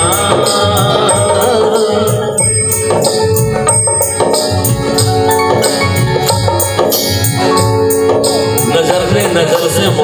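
Live Bhojpuri folk accompaniment: a harmonium holds steady chords over an even dholak rhythm, with a tambourine's regular jingles on the beat.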